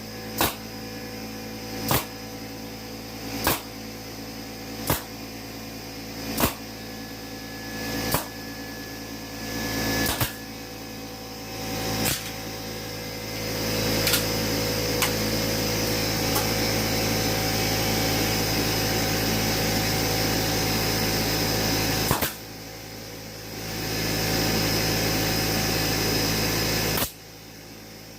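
A staple gun fires about eight times, roughly every one and a half seconds, driving fasteners into a wooden beehive frame over a steady motor hum. After about thirteen seconds the motor runs louder. It dips briefly and then stops shortly before the end.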